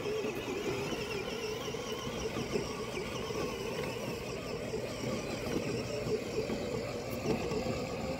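Battery-powered KidTrax ride-on toy dump truck driving across grass, its electric drive motor and gearbox giving a steady whine.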